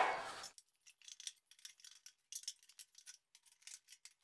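Faint, scattered small clicks and clinks from a black metal cabinet frame being handled and fitted together.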